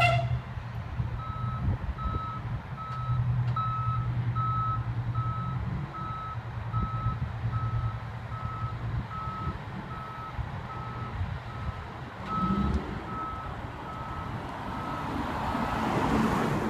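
Backup alarm of a 1991 Pierce Arrow aerial ladder fire truck beeping on one steady pitch, a little over one beep a second, as the truck reverses, over the low drone of a truck's diesel engine. Near the end a car passes close by.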